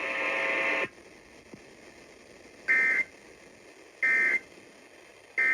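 Emergency Alert System end-of-message signal after a weather warning: a short buzzy tone, then three short, shrill data bursts about a second and a half apart, the digital code that closes the alert.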